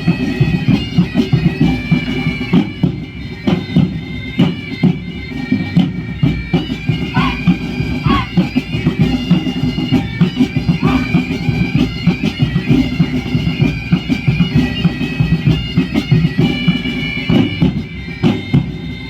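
Bagpipe music: pipes playing a sustained melody over a steady beat of drum strokes, accompanying a kukri dance.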